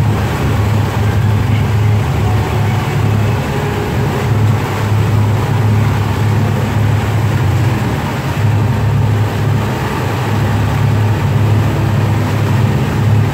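Cruise boat's engine running with a steady, deep drone, over the rushing wash of the boat's wake.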